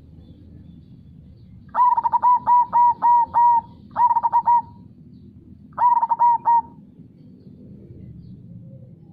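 Zebra dove (perkutut) cooing: a quick run of about seven short notes, then two shorter groups of notes, over a steady low rush of flowing river water.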